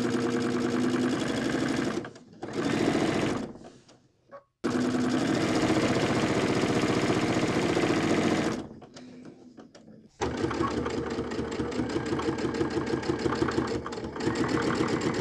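Electric sewing machine stitching binding onto a bulky quilt at a steady fast needle rhythm, stopping and starting several times with brief pauses between runs.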